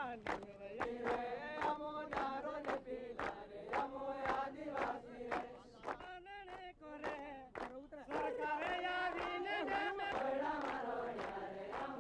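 A group of men singing a chant together, keeping time with steady hand claps about two to three times a second. The singing thins out around the middle and comes back fuller a couple of seconds later.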